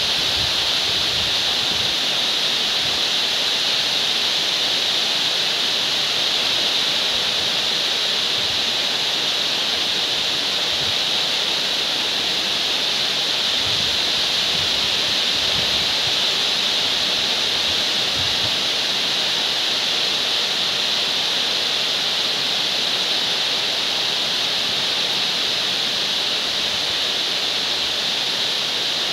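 Heavy rain falling steadily, a dense even hiss with no letup.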